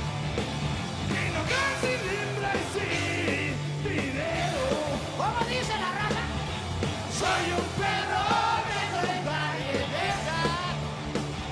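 Rock band playing live: a drum kit, bass guitar and electric guitar, with a male voice singing and shouting the lyrics into the microphone.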